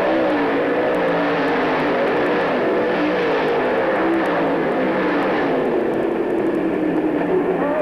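Several dirt-track race cars' engines running hard around the oval, their pitch rising and falling as they accelerate and lift through the turns.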